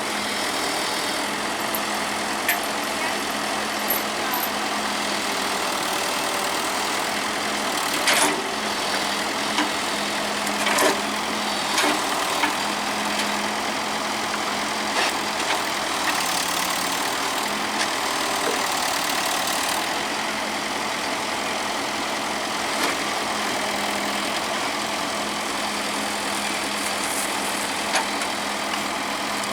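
Heavy machinery diesel engine running steadily, with a few short sharp knocks or clanks through the middle.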